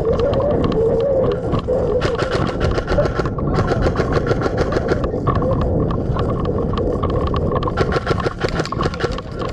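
Airsoft guns firing in rapid full-auto bursts, many shots a second, with short breaks between strings.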